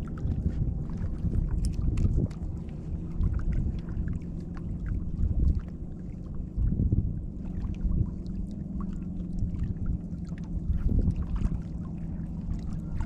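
Low rumbling wind noise on the microphone, surging and dipping irregularly, with faint scattered small ticks over it.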